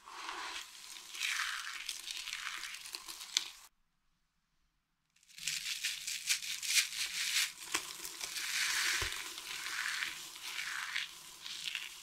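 Dry soap shavings crunching and crackling in repeated squeezes as hands crush them. The sound cuts out completely for about a second and a half in the middle. It then resumes as balls of pressed soap curls are squeezed and crumbled.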